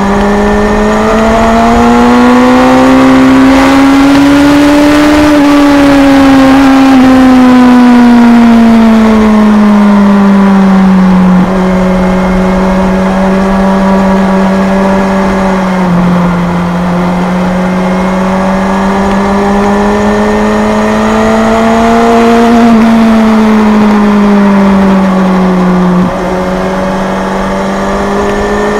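Kawasaki Z1000's inline-four engine running hard on track, its pitch climbing and easing smoothly with the throttle, over steady wind rush. There are a few abrupt drops in level and pitch, about 11, 16 and 26 seconds in.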